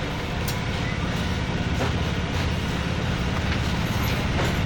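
Steady background noise: an even hiss over a low, constant hum, with a few faint clicks.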